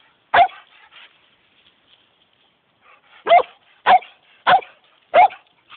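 Dog barking: a single bark, then after a pause a run of four barks just over half a second apart.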